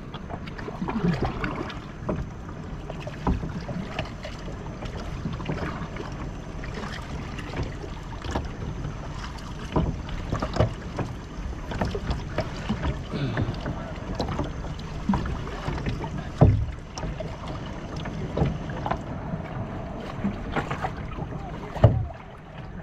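Kayak being paddled: the paddle blades dip and splash in the water at an uneven pace, with occasional sharp knocks, the loudest about 16 and 22 seconds in.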